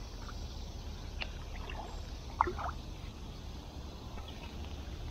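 Canoe paddling: a wooden paddle working the water, with a few light knocks, the loudest about two and a half seconds in, over a steady low rumble.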